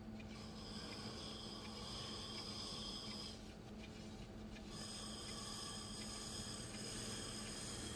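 Potter's wheel turning with a steady low hum while a trimming tool scrapes the spinning clay cup with a dry rasp that stops for a second or so in the middle. The clay is drier than ideal for trimming.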